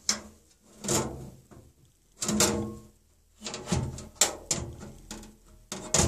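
Steel side panel of a Lenovo ThinkCentre A57 desktop case being worked onto the chassis by hand: a series of about half a dozen short metallic scrapes and clunks, the longest near the middle, as the panel is shifted against the case while its tabs are lined up.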